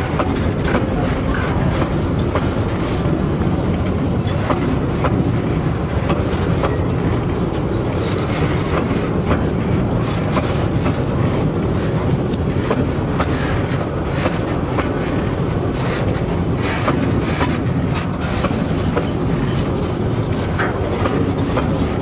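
Freight train of tank wagons rolling past: a steady rumble of steel wheels on the rails, with repeated clacks as the wheels cross the rail joints.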